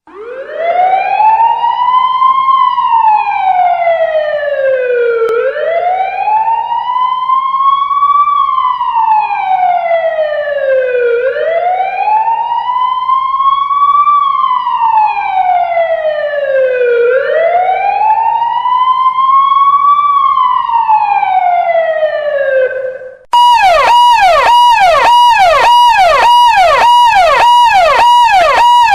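Electronic police siren sounding a slow wail, rising and falling about every six seconds, four times over. About 23 seconds in it cuts abruptly to a fast yelp, nearly three sweeps a second.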